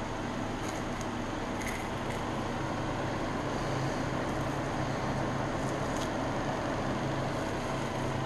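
Steady background hum and hiss, with a few faint light clicks as a small plastic part is handled, a cluster in the first couple of seconds and two more about six seconds in.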